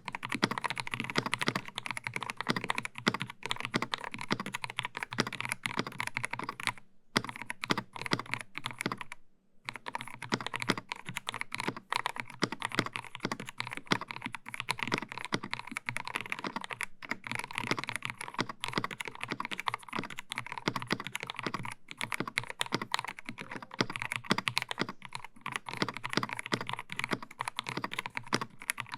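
Fast, continuous typing on a Dark Project x AKKO 5075 mechanical keyboard with lubed g3ms Sapphire switches, a polycarbonate plate and CSA PBT doubleshot keycaps: dense keystroke clicks, pausing briefly about nine seconds in.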